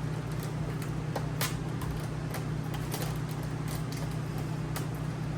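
Steady low hum of a fan or air conditioner, with a scattered series of light clicks and taps from handling the model airplane's parts.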